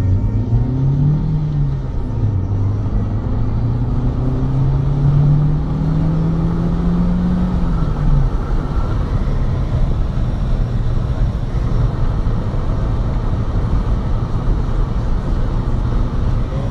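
Car driving at speed, heard from inside the cabin: a steady low road rumble. An engine tone climbs, dips once and climbs again, then fades out about eight seconds in.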